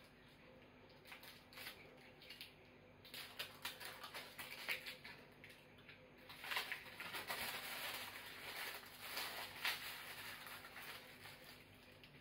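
Faint rustling and small clicks of hands handling a new sediment filter cartridge for a reverse-osmosis water filter, busier and louder about halfway through.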